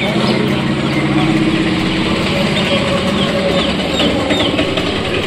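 An engine running steadily with a low hum, with short high chirps over it in the middle.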